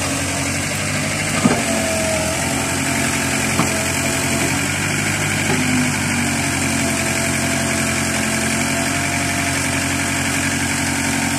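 Caterpillar 307C excavator's diesel engine running steadily while the machine digs, with two short knocks early on. It runs normally under load, with fuel reaching all cylinders again after a fuel fault that had made it bog down and stall under load.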